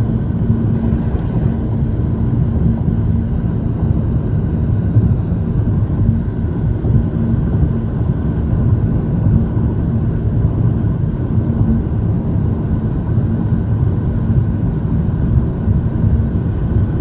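Steady road and engine noise heard inside a moving car: a constant low hum with no change in speed.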